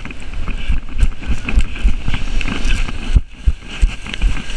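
Running footsteps across sand and into the shallow surf, each stride, about three a second, jolting the body-worn camera with a low thump, over the steady wash of breaking waves.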